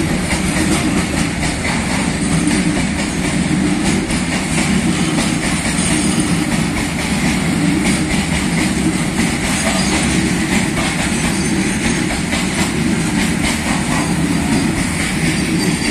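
Indian Railways goods train's hopper wagons rolling past at close range: a steady loud rumble of steel wheels on the rails with a clatter over the rail joints.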